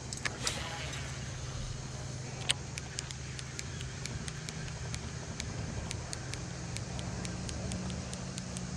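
A boat motor hums steadily and low. Over it come scattered sharp ticks from a fishing rod and reel as a lure is cast and reeled back in, with a brief swish just after the start.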